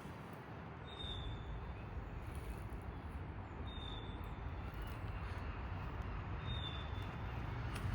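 Steady hum of urban road traffic, growing slightly louder. A short high chirp repeats about every three seconds over it.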